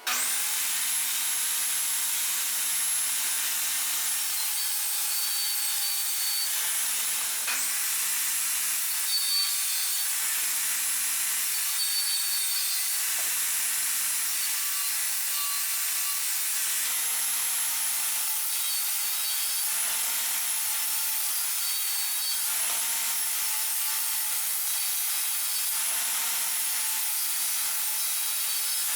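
A high-speed power tool cutting, its motor whine dipping briefly in pitch every two or three seconds as it takes load. It starts suddenly and cuts off near the end.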